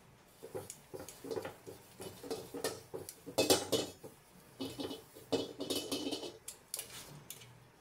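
Metal tongs holding an oiled paper towel scraping and clicking against a carbon steel wok as oil is wiped over the pan's surface during seasoning. An irregular run of strokes, the loudest about three and a half seconds in.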